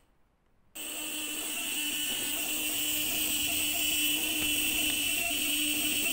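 A 12 V five-pin automotive relay, wired with a capacitor as a self-interrupting flasher circuit, starts buzzing about a second in and keeps a steady, even buzz. Its chattering contacts are switching an ignition coil's primary on and off, firing the spark plug the coil is connected to.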